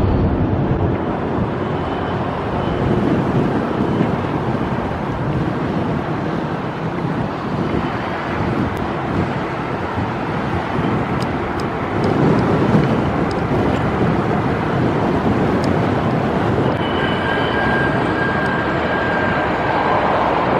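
Steady rumble of vehicle engines, with a faint steady tone joining in near the end.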